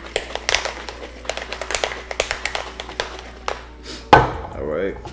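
Metal cocktail shaker shaken hard, its contents rattling in quick rhythmic clicks for about three and a half seconds. About four seconds in comes one loud sharp knock, then a brief ringing.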